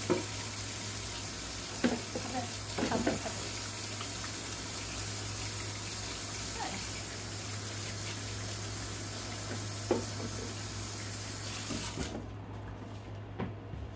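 Kitchen tap running into a stainless steel sink while hands are washed under it, with a few brief knocks; the water shuts off about twelve seconds in.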